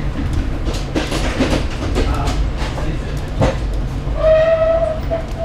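Steady low rumble and rattle of a moving passenger train heard from inside the carriage, with irregular clicks of the wheels over the track. About four seconds in, a horn sounds a held tone for about a second, then briefly again near the end.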